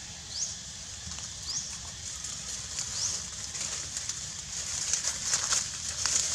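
A bird gives a short rising call three times in the first three seconds, over a steady high hiss that grows louder in the second half, with a few scattered clicks or rustles near the end.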